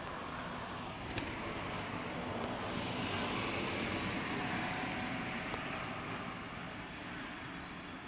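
A car driving past, its noise swelling to a peak about halfway and fading again, with one sharp click about a second in.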